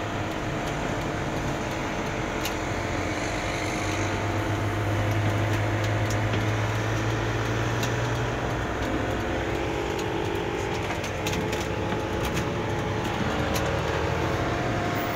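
Engine and road noise heard from inside a moving vehicle's cabin, with a low steady engine hum that swells about four seconds in and eases back a few seconds later.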